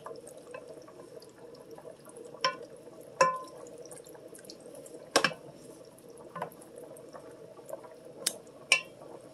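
Wooden spoon stirring a thick, wet tomato, corn and cheese mixture in an enamel Dutch oven, with half a dozen scattered knocks and clinks of the spoon against the pot, over a steady low hum.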